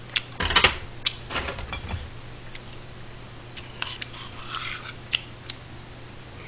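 Metal spoon clinking and scraping against a small stainless steel rice bowl: a run of irregular sharp clicks, the loudest about half a second in, with short scrapes in between.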